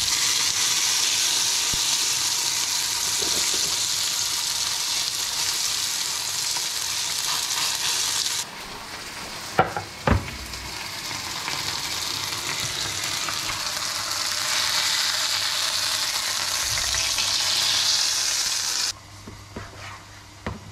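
Potatoes deep-frying in a saucepan of hot oil alongside a frying pan, a steady loud sizzle. It drops off suddenly about eight seconds in, and two sharp knocks follow as a wooden cutting board and knife are set down. The sizzle returns and cuts off again near the end, leaving a few light knife taps on the board.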